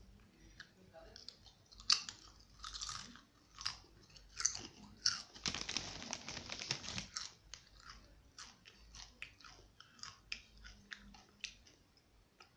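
A child chewing crunchy rolled spicy chips, a Takis knock-off: a string of sharp crunches, with a louder, denser stretch of crunching a little past the middle.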